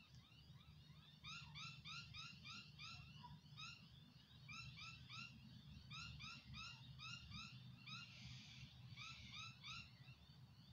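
Faint, rapid chirping: short rising notes repeated several times a second in runs, over a low steady hum.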